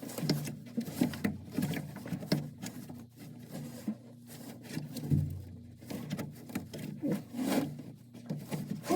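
Irregular small clicks, knocks and rubbing of hand work on a washing machine's parts while a shock absorber is fitted.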